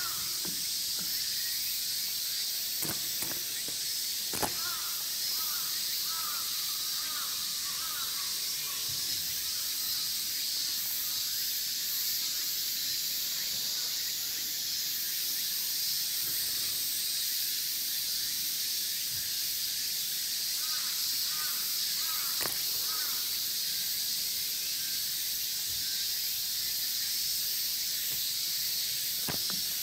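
Steady high-pitched drone of cicadas, shifting in pitch about halfway through, with a few sharp taps and faint chirps.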